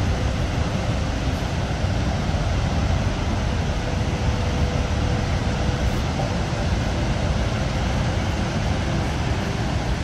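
Steady, unbroken rush of water from the Horseshoe Falls at Niagara, strongest in the deep rumble.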